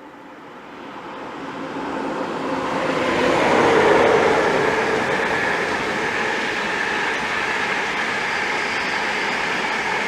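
IC225 electric express, a Class 91 locomotive hauling Mark 4 coaches, passing through the station at fairly slow speed. The rumble of wheels on rail grows louder over the first four seconds, then holds as a steady rush while the coaches run past.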